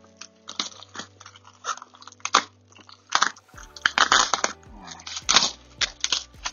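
Packaging being cut and torn open by hand: an irregular run of crinkling, crunching rustles, busiest in the second half.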